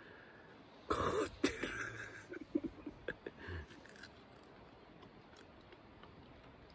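A man coughs and clears his throat about a second in, followed by a few small clicks and taps.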